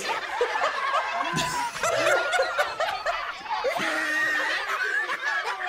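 A crowd laughing, many voices at once.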